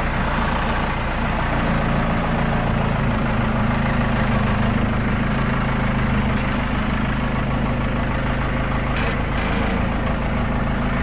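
Heavy diesel engine running steadily at an even speed, with a low, constant drone.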